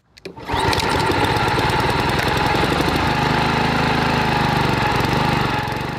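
Honda HRX walk-behind lawn mower's single-cylinder four-stroke engine running steadily. It comes in about half a second in and fades out near the end.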